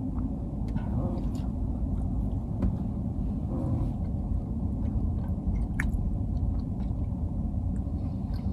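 Steady low rumble inside a car's cabin, with faint chewing and small scattered mouth clicks from a person eating a brownie.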